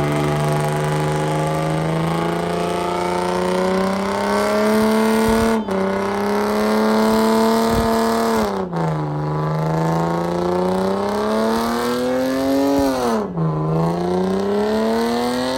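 A car engine held at high revs for a long stretch, its note slowly climbing, with three brief dips where the throttle is let off and the revs drop before climbing again.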